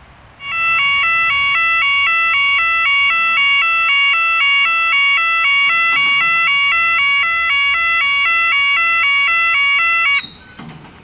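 Pedestrian level crossing warning alarm: an electronic two-tone signal stepping back and forth between its two tones at a steady rate, starting about half a second in and cutting off suddenly near the end. It sounds as the crossing gate swings shut, warning of an approaching train.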